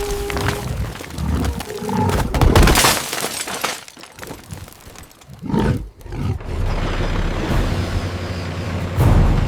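Sound-effects mix of crashing and breaking impacts with roar-like sounds, loudest about two and a half seconds in, then a steady low rumble with another heavy hit near the end.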